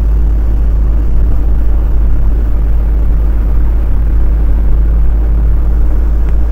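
Lorry driving along a road: a loud, steady low rumble of engine and road noise.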